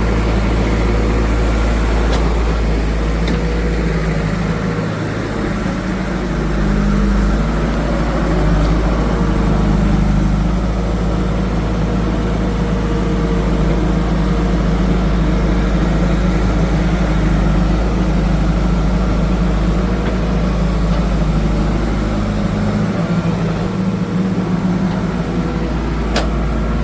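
Diesel engine of heavy machinery running steadily, its note shifting under changing load: it dips briefly about five seconds in and picks up again near ten seconds.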